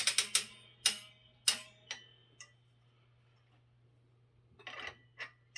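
Metal tire tool of a Rabaconda manual tire changer clinking against the changer's metal parts as it is popped off and handled. First comes a quick run of sharp metallic clicks with a brief ring, then a few single knocks over the next two seconds. Near the end there is a short scrape and one more click.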